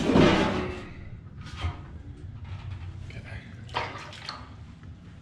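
Water sloshing and splashing in a full bucket: a loud splash at the start, then smaller sloshes twice more.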